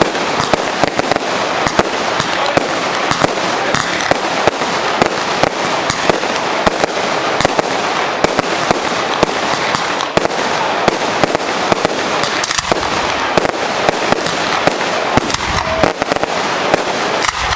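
Aerial fireworks display: a dense, unbroken run of pops and crackling from small bursts going off overhead.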